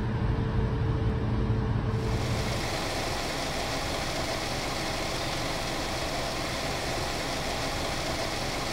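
An engine idling, a steady low hum that stops about two seconds in. After that, a steady even hiss of outdoor noise.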